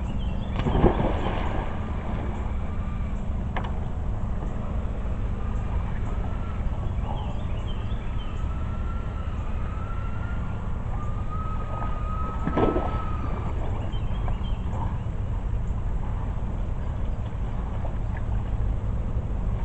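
Outdoor ambience with a steady low rumble and a faint wavering high tone. A few sharp knocks of someone moving about on a wooden dock stand out, the loudest about a second in and another a little past the middle.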